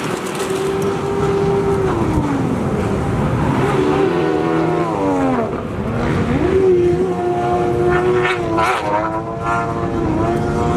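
Stand-up jet skis' two-stroke engines revving hard on the water, the engine pitch dropping and climbing again several times as the riders throttle off and on through turns.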